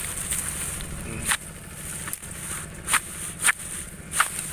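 Footsteps crunching on dry bamboo leaf litter, four sharp crackles a second or less apart in the second half, over a low rumble.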